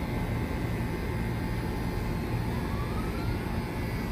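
Steady low background rumble with no clear single source. A faint tone rises in pitch a little over two seconds in.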